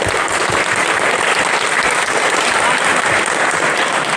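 A crowd applauding, a dense steady clatter of clapping.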